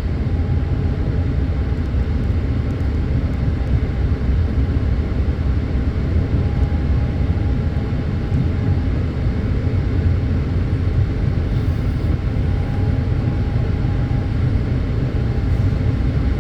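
Interior of a moving REM light-metro train: a steady rumble of wheels on rails, with a faint high whine from the electric drive that comes and goes.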